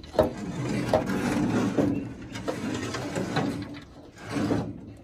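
Scraping and knocking of a metal concrete-formwork panel as it is lifted and carried away, with a few sharp knocks among the rubbing.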